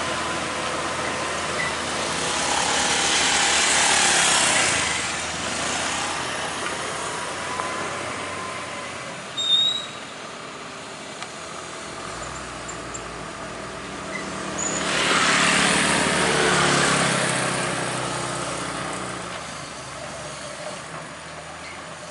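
Road traffic passing close by: vehicles, including a truck, go past in two swells of engine and tyre noise, with a brief loud sharp sound about halfway through.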